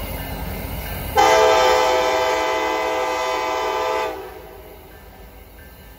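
A freight locomotive's air horn sounds one long blast of about three seconds, a chord of several notes, over the low rumble of a train. The horn cuts off sharply and a quieter rumble goes on.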